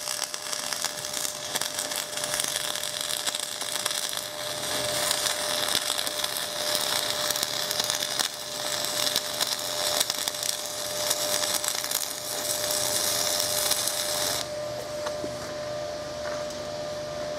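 Dual-shield flux-cored wire welding arc crackling steadily as the weld bead is laid, stopping near the end.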